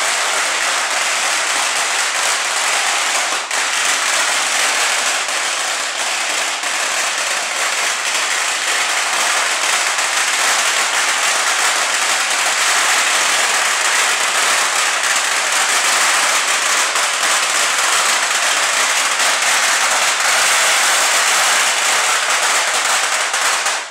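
A long string of firecrackers going off in one continuous, dense crackle, with no break.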